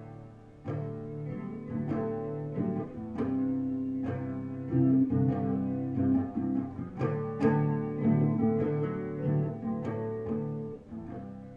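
Guitar played solo, picked notes and chords ringing on one after another: the instrumental opening of a song.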